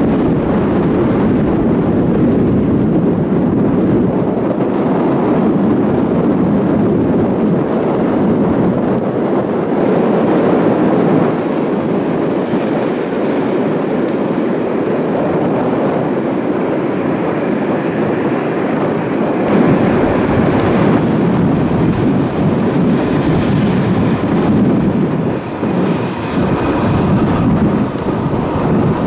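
Airbus A220-300's Pratt & Whitney PW1500G geared turbofans: a steady, loud jet roar as the airliner lands, then engine noise with a faint high whine as it taxis.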